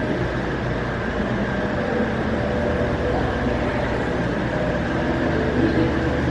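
Steady low rumbling hum of indoor aquarium ambience, the kind made by tank water pumps and the hall's air handling.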